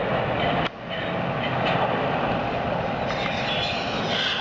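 Jet airliner's engines at take-off power during the take-off roll, heard from a distance as a steady rushing noise. The level drops suddenly just under a second in, then holds steady.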